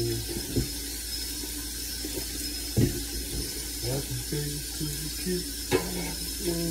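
A man's voice humming a slow tune in low held notes. Three sharp knocks break in: one about half a second in, a louder one near three seconds, and one near six seconds.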